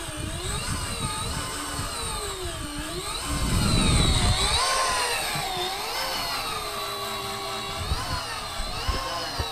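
Electric deep-drop fishing reel's motor whining as it winds in line with a fish on, its pitch rising and falling as the fish pulls against it and the motor labours under the load. A louder low rumble comes in about three to four seconds in.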